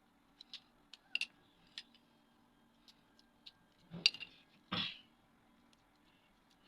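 Scattered light clicks and taps of objects being handled. About four seconds in there is a louder cluster of sharp clicks, then a short knock.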